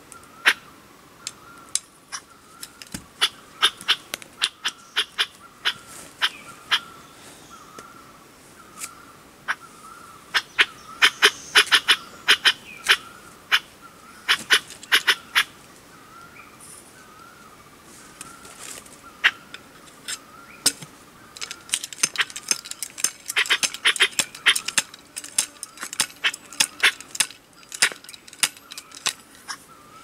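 Sharp clicks in irregular runs, densest from about ten to fifteen seconds in and again from about twenty-one seconds on, over a faint steady warbling tone.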